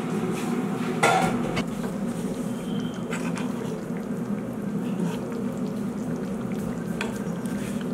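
Chicken-feet gravy simmering and bubbling in a metal pan over a steady low hum, with a sharp knock about a second in and a few lighter clicks, like a utensil against the pan.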